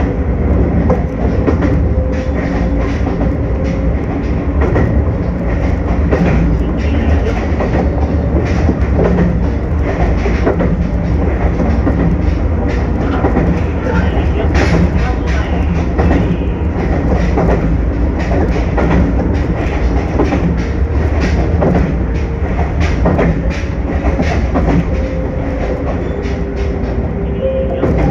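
Omi Railway electric train running along single track, heard from inside the cab: a steady low rumble of wheels on rail with repeated clicks over the rail joints and a faint hum underneath.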